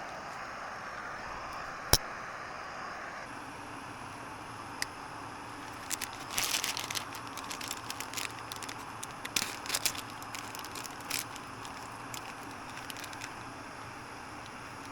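Crinkling and crackling of dry cereal and its packet being handled and poured into an improvised bowl: a sharp click about two seconds in, then bursts of crackly rustling in the middle stretch, over a steady hiss.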